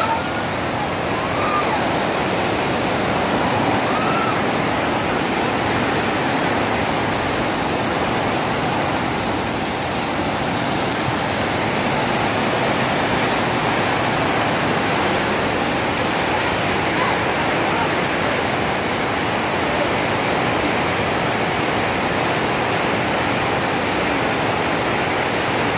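Muddy flash-flood torrent rushing past in a loud, steady, unbroken rush of water.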